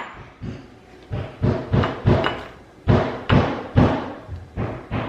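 Kitchenware being knocked repeatedly: short, dull knocks about two a second.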